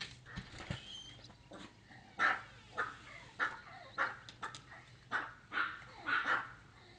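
A dog barking repeatedly, about two barks a second, starting about two seconds in.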